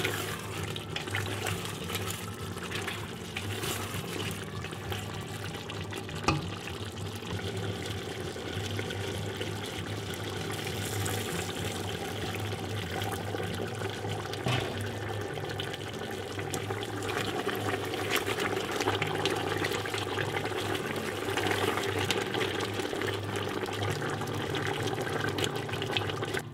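Chicken drumsticks simmering in their juices in a steel pot, the liquid bubbling and crackling steadily over a low hum, with two sharp knocks, about six and fourteen seconds in.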